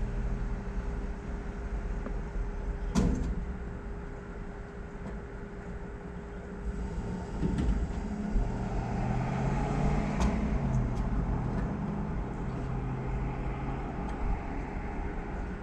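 A motor vehicle engine running with a steady hum, its pitch shifting between about 8 and 12 seconds in. A single sharp knock comes about 3 seconds in, and a few light clicks come around 10 seconds.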